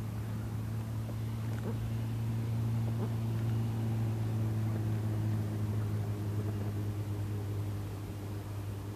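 A motor's low, steady hum on one pitch, growing louder around the middle and easing off near the end.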